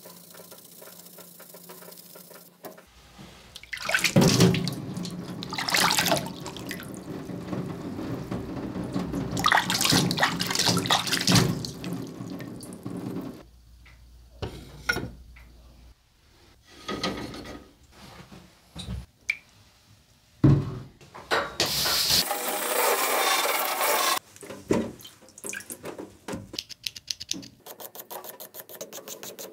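Water running from a tap into a sink in spells, mixed with wet scraping of a knife blade and a whetstone being handled.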